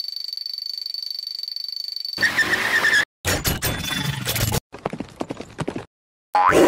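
Cartoon sound effects for a robot folding into a motorcycle. A high, steady electronic tone with a fast pulse lasts about two seconds, then a short squeal, and then bursts of mechanical clattering and whirring with brief gaps between them. Near the end a rising sound starts.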